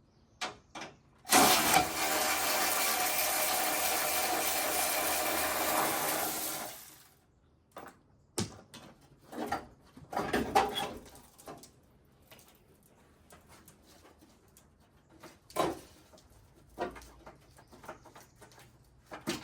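A power tool runs steadily for about five and a half seconds, driving out a bolt, then stops. It is followed by scattered clicks and clanks of tools and parts being handled.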